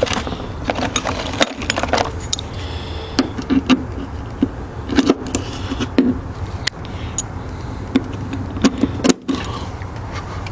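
Hand tools clinking and clicking on metal: a 7/16 socket and ratchet being tried on the exhaust header bolts, in a string of sharp separate knocks. A steady low hum runs underneath.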